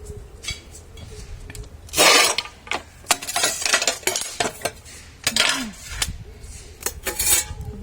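A metal hand tool scraping and rasping against a hard surface in several separate strokes, the loudest about two seconds in.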